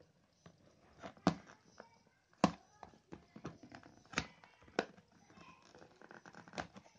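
Scissors cutting and scraping through a paper seal sticker on a cardboard box: several sharp clicks spread through, the loudest about two and a half seconds in, with faint scratching between.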